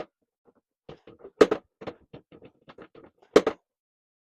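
A run of light taps and clicks on a hard object, with three louder knocks about two seconds apart.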